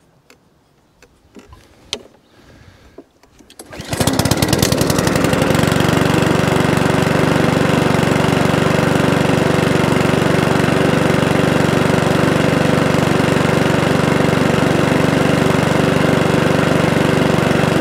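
Cold petrol lawnmower engine pull-started about four seconds in. It catches straight away and then runs steadily at full throttle.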